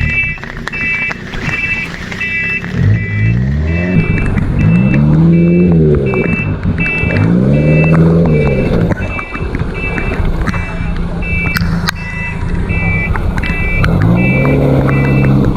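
Heavily loaded off-road car's engine revving up and falling back several times, each rev lasting about a second and a half, while its reversing alarm beeps steadily about twice a second: the car is in reverse, struggling on the slope.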